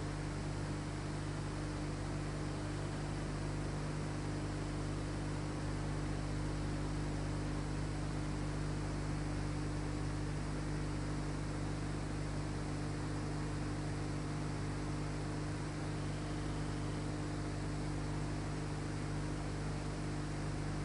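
Steady electrical hum with hiss, unchanging throughout.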